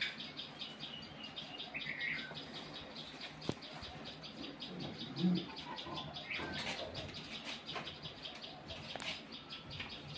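Rapid, even high-pitched chirping runs on in the background, many pulses a second. Over it come a few sharp knocks and a dull thump about five seconds in as a snake stick is worked among the shed's roof beams.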